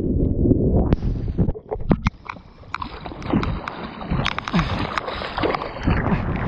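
Whitewater rushing and splashing around a surfboard-mounted GoPro, with wind buffeting the microphone and sharp splashes and water drops striking the camera housing. The rush drops away for about a second around two seconds in, then builds again.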